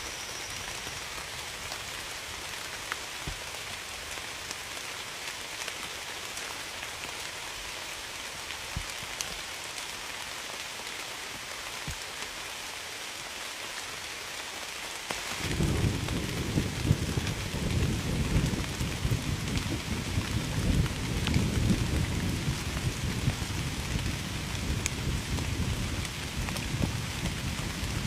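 Steady rain falling with a soft, even hiss. About halfway through, a loud, uneven low rumble comes in suddenly and continues over the rain.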